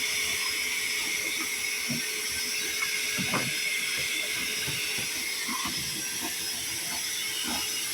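A steady hiss with a faint hum underneath and a few light knocks and rustles.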